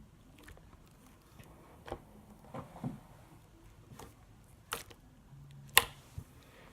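Jiggly slime being handled by hand, giving a handful of short, scattered clicks and pops, the sharpest one near the end.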